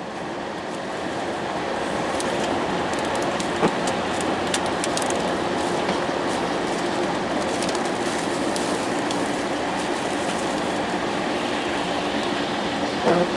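Steady tyre and road noise of a vehicle driving on a wet, slushy highway, heard from inside the cab, growing a little louder a second or two in. Scattered light ticks run through it, with a sharp knock about three and a half seconds in and another near the end.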